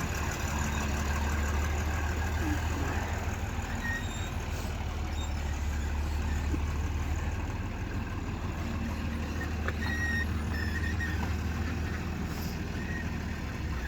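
Machinery running with a steady, unbroken low hum.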